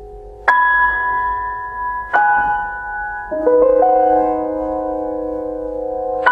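Solo piano playing slow, sustained chords from a new contemporary piano piece: a bright chord struck about half a second in, another about two seconds in, then a few lower notes added around three and a half seconds, all left ringing.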